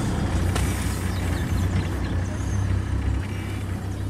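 Game-drive vehicle's engine idling: a steady low rumble that eases a little about three seconds in.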